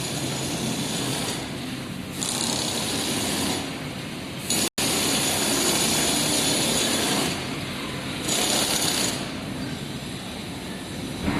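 Foundry workshop machinery noise: a steady rumble with repeated spells of loud hiss, each lasting one to three seconds.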